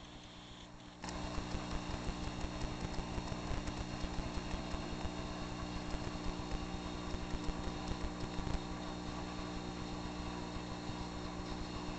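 Saltwater aquarium equipment running: a steady motor hum with bubbling, crackling water. The sound is much quieter at first and comes back abruptly about a second in.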